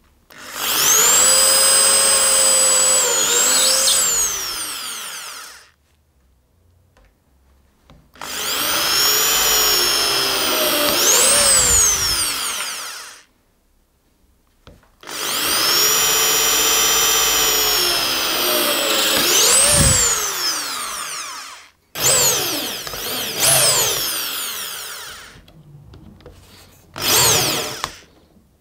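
Power drill boring pilot holes into stacked OSB boards. It runs three times for about five seconds each, its motor whine dipping and rising in pitch as the bit loads up, then gives shorter bursts near the end.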